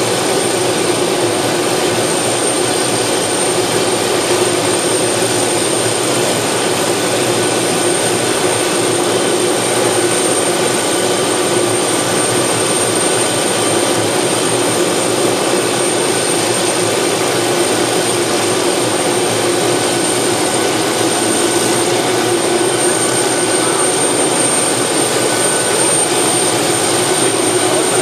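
Small turbine helicopter idling on the ground: a steady rush with a thin high-pitched turbine whine held constant throughout.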